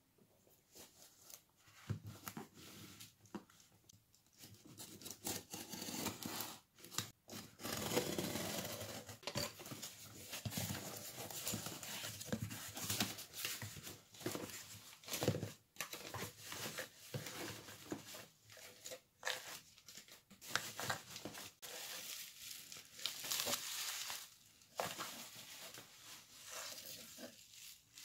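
Cardboard shipping box being opened by hand: tearing, cardboard flaps scraping and rustling, then bubble wrap crinkling as wrapped items are lifted out near the end.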